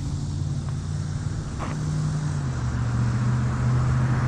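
A motor vehicle engine running steadily. Its pitch drops a little about two and a half seconds in, and it grows louder toward the end.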